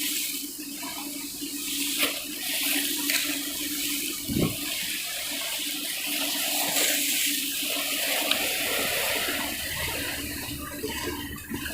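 Water rushing and churning with a steady hum underneath, from a ferry's propeller wash and engines while it comes in to dock. A few brief knocks stand out.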